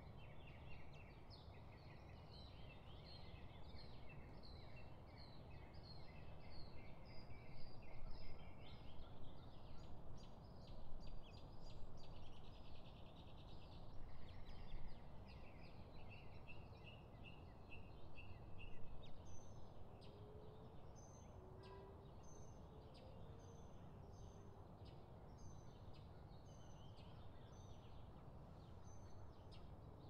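Small birds chirping and twittering over steady low outdoor background noise. About two-thirds of the way through, the chatter thins and a single thin, high note repeats about once a second.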